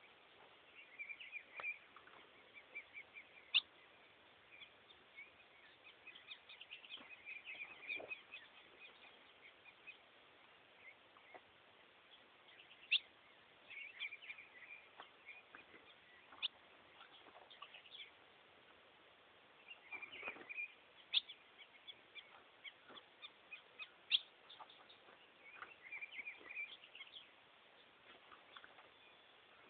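Ultramarine grosbeak (azulão) singing in bursts of quick chirpy notes every few seconds, with a few sharp clicks in between.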